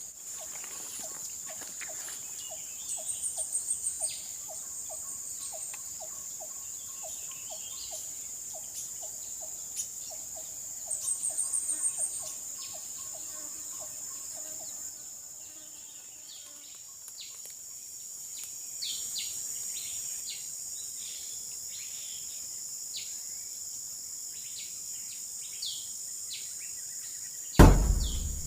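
Outdoor ambience of insects droning steadily at a high pitch, with a bird's chattering call twice, about three and eleven seconds in. Through the first half a regular series of short knocking notes repeats about one and a half times a second, and near the end a single loud thump is the loudest sound.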